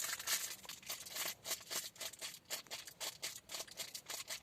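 Irregular rustling with quick light clicks, like things being handled or rummaged through.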